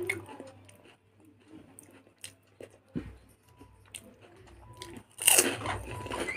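Close-up eating sounds: crunching and chewing, with a loud crunch about five seconds in, as a piece of fried papad is eaten.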